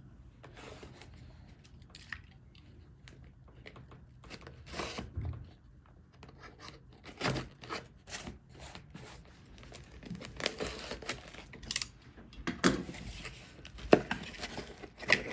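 A package of stickers being torn open and handled: paper or packaging tearing and crinkling in irregular bursts, busier in the second half.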